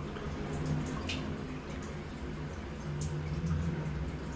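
Water running and trickling inside a toilet tank, with a steady low hum. Two sharp clicks, about one and three seconds in, come from handling the parts inside the tank.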